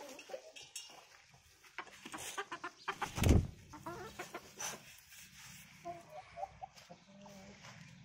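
Aseel chickens clucking in short calls, with one brief loud thump about three seconds in.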